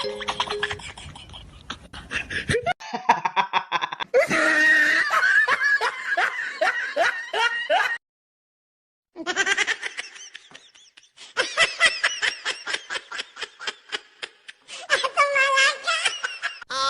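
People laughing in repeated, rapid pulses of ha-ha sounds, in several abruptly cut segments with a second of dead silence about halfway.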